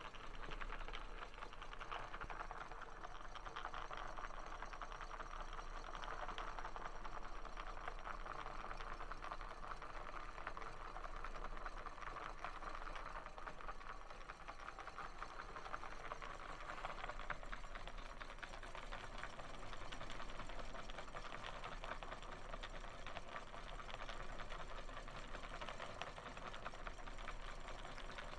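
Handmade popsicle-stick model drive running on 12 V DC: hand-wound coil electric motors turning wooden-and-plastic reduction gears, flywheels and a propeller, making a steady, rapid mechanical clatter with a low hum underneath.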